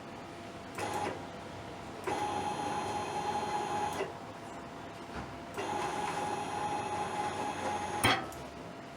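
A hybrid servo stepper motor driving a linear actuator axis: a brief blip about a second in, then two runs of about two seconds each with a steady whine. The second run ends in a sharp click as the motion stops.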